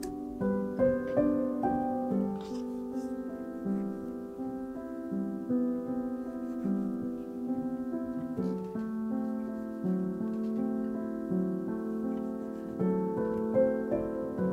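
Background piano music, its notes held and changing about once a second.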